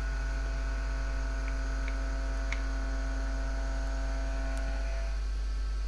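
Steady electrical mains hum with a thin buzz and hiss, the higher buzzing tones dropping out near the end; a few faint clicks come about one and a half to two and a half seconds in.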